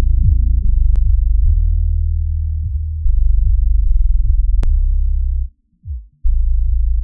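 Electronic dance music played through a steep low-pass filter for a subwoofer test: only the deep bass and kick drum are left, with the kicks falling in pitch about every half second and everything above the low bass cut away. The music drops out briefly about five and a half seconds in.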